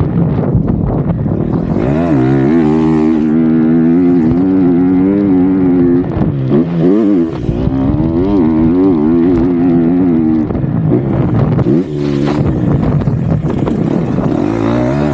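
A 2023 KTM 250 SX-F's single-cylinder four-stroke engine revving hard under riding, its pitch climbing and falling as the throttle opens and shuts. The engine note drops off briefly about six seconds in and again near twelve seconds, then picks back up.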